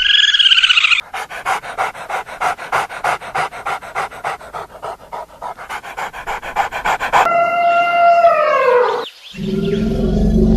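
A dog panting rapidly, about five quick breaths a second, for roughly six seconds. A short wavering call comes before it and a single falling call after it, and a low steady musical drone comes in near the end.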